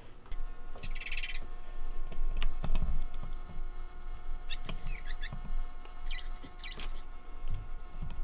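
A feathered bird cat toy chirping in short electronic bursts several times as a cat bites and paws it, with soft thumps and clicks from the toy being handled.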